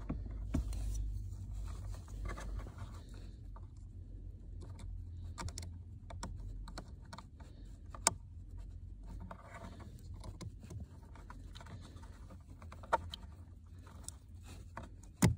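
Hands working behind a car's plastic footwell trim, pulling down the footwell light's wiring: scratching and rubbing of plastic and cable, with a few sharp clicks, the last just before the end.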